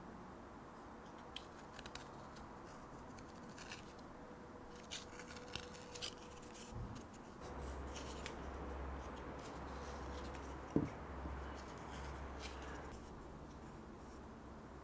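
Flexcut scorp cutting a groove inside the bottom of a green conifer-wood pot: faint, short scraping cuts in the wood, with one sharp knock past the middle.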